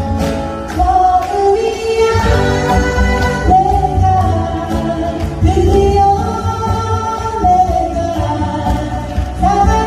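A woman singing a Korean pop song, accompanied by two steel-string acoustic guitars strumming, amplified through a PA system.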